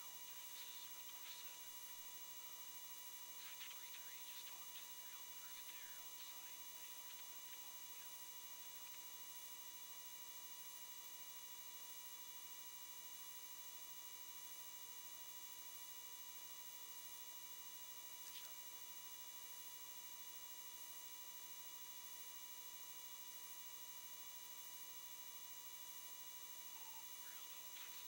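Faint steady electrical hum made of many fixed tones, with a few brief faint chirps of higher-pitched noise.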